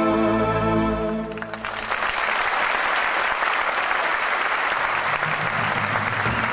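A held musical chord ends about a second and a half in, and an audience breaks into steady applause.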